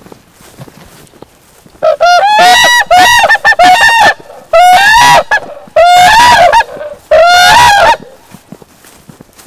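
Whooping cranes giving loud, trumpeting calls, several bursts in a row from about two seconds in, stopping about a second and a half before the end.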